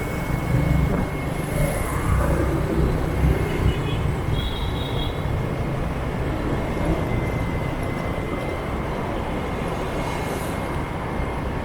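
Steady drone of a motorbike ride through city traffic: engine and road rumble with a constant noise of passing traffic. About four seconds in there is a brief high-pitched double tone.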